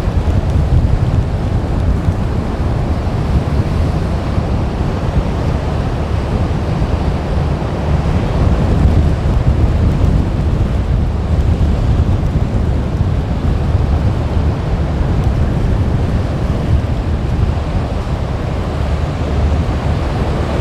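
Strong wind buffeting the microphone in a steady low rumble, over the rush of surf.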